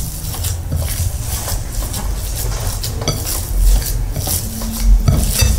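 A hand kneading minced meat with spices in a ceramic bowl: repeated soft squishes and small clicks and knocks against the bowl.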